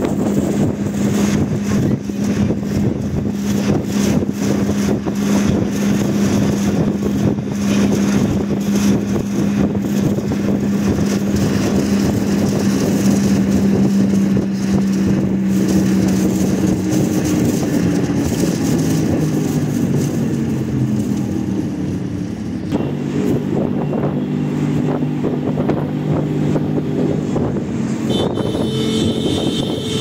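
Road and engine noise heard from inside a moving car, with wind rushing past. A steady low engine hum runs through the first half, then wavers and shifts lower a little past halfway as the car's speed changes.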